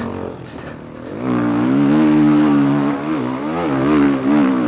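Motocross bike engine, heard from on board, opening up hard about a second in and pulling under heavy load through deep mud ruts on a climb, the revs rising and falling unevenly.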